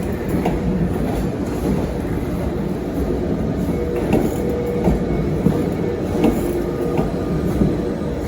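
A train moving slowly, with a steady low rumble and a faint steady hum; from about halfway through, its wheels click over rail joints roughly every three quarters of a second.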